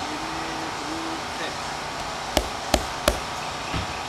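Three sharp slaps of hands on a newly fitted car windshield, about a third of a second apart, followed by a softer one, as the glass is pressed and patted into place.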